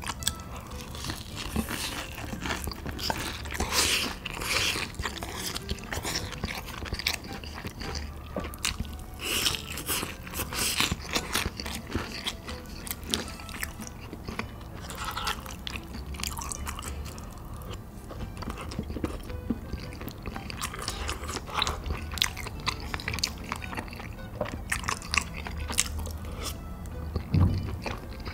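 A person eating crunchy food close to the microphone: repeated crisp bites and crunching chews in irregular clusters, over soft background music.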